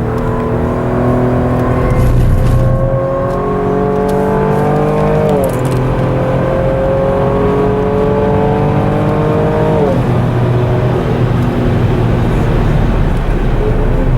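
2018 Holden Commodore's V6 engine under hard acceleration, its revs climbing through the gears. The pitch drops sharply at two upshifts, about five and ten seconds in, then climbs again.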